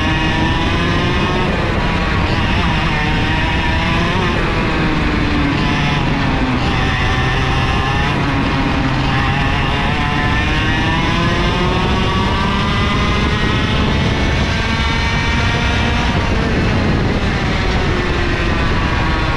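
IAME KA100 single-cylinder two-stroke kart engine heard from on board, its revs climbing and falling every few seconds as the kart accelerates and slows, with one longer climb about halfway through.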